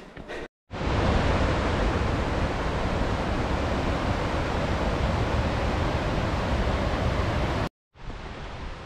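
A fast mountain creek rushing over rocks: a loud, steady rush of water that starts suddenly just under a second in and stops suddenly near the end, followed by a fainter hiss.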